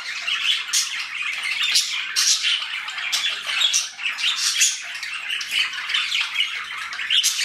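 Budgerigars chattering and squawking without a break: a dense stream of short, quick chirps and scratchy warbles.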